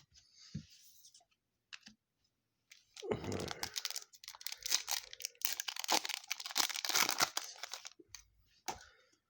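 Crinkling and tearing of a foil trading-card pack wrapper being ripped open, a dense crackling stretch from about three seconds in lasting about five seconds, with a few light clicks of cards handled before and after.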